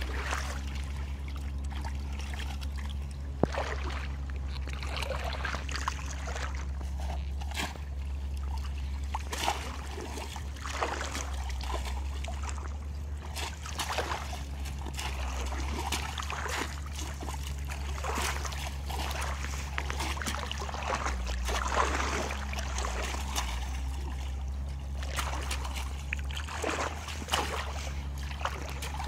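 Shallow water splashing and trickling in scattered bursts as bamboo polo fish traps are plunged down into it and lifted out, over a steady low rumble.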